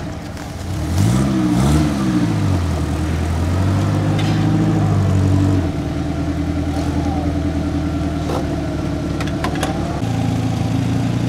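Off-road 4x4 engine revving up and down twice about a second in, then running steadily at moderate revs; the engine tone shifts about six seconds in and again near the end.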